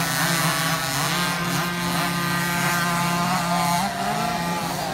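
Small 50cc two-stroke motocross bike engines revving on the track. Several engines overlap, their pitch rising and falling with the throttle.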